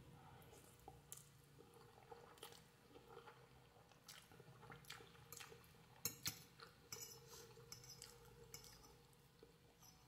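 Faint, sparse eating sounds: soft wet mouth clicks while chewing instant noodles, a little busier about six seconds in.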